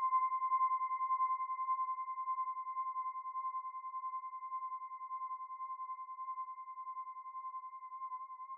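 A single held electronic tone, pure and whistle-like, slowly fading, with a slight regular pulse in loudness. Near the end its pitch begins to waver in a gentle vibrato.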